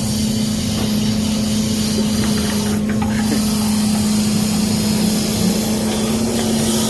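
Logging truck's diesel engine running steadily with a constant hum while the truck-mounted log loader is being operated.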